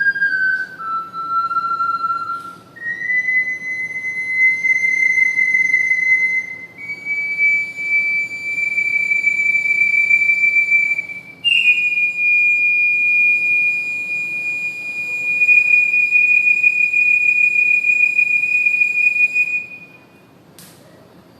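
Triple ocarina playing a slow melody in its high register, one pure whistle-like note at a time. It steps down through a few short notes, then climbs to long held notes, the last and highest held for about eight seconds before it stops shortly before the end.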